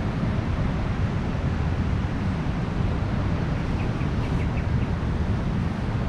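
Steady beach ambience of ocean surf and wind, with a heavy low rumble of wind on the microphone. A short run of about five faint high pips comes about four seconds in.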